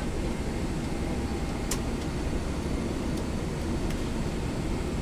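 Steady low hum of a Boeing 777-300ER airliner cabin, with a single faint click about a second and a half in.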